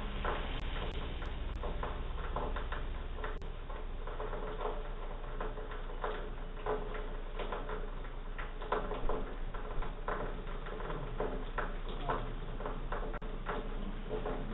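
Irregular light clicks and taps over a steady low hum, heard through a doorbell camera's microphone.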